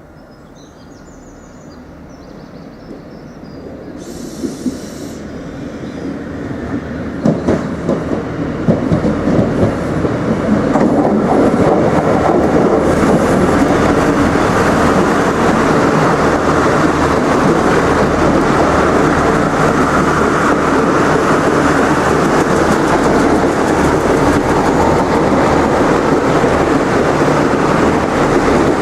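Irish Rail 29000 class diesel multiple unit approaching and running by, growing steadily louder over the first ten seconds or so, with a run of wheel clicks over the rail joints as it draws close, then a steady loud rumble of wheels and underfloor diesel engines. A short hiss sounds about four seconds in.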